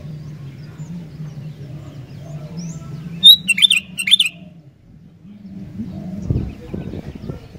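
Sooty-headed bulbul (kutilang) singing a short, loud burst of quick chirping notes about three seconds in, over a low steady hum; a low rumble comes near the end.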